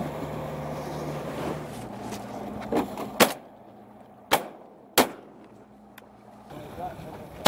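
Boat engine running steadily, then fading out about three seconds in. Several short, sharp cracks stand out over it, the loudest about three seconds in, two more about a second apart after it, and one at the very end.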